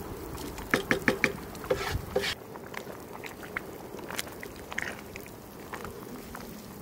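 A wooden spoon knocking quickly against a pan several times, then stirring a pot of thick simmering herb and noodle soup with soft wet scrapes and light taps.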